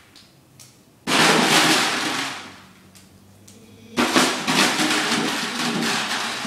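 Dried beans rattling inside an empty plastic water jug as it is shoved along a hard floor, in two loud bursts, about a second in and about four seconds in, each dying away over a second or two.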